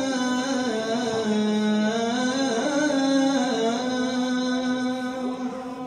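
A man singing a nasheed in a single voice: one long wordless melismatic line with held notes that step down and then climb back up, fading near the end.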